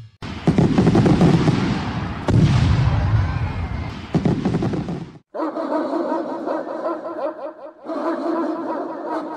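Explosion sound effect: a rough, rumbling blast with several sharp crashes, lasting about five seconds and cutting off suddenly. It is followed by a wavering, pitched drone that breaks off briefly about two and a half seconds later and then resumes.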